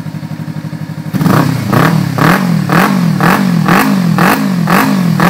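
Kawasaki Ninja 300's parallel-twin engine through a Roncar Coyote 2Way+ exhaust with its valve fully open in sport mode. It idles, then about a second in the throttle is blipped repeatedly, about two revs a second, each rising and falling. It is a full-bodied exhaust note rather than a metallic one.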